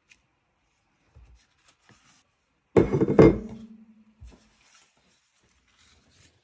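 Objects being set down on a craft table: two or three sharp knocks about three seconds in, with a short low ringing after them, and lighter thuds and paper rustles around them.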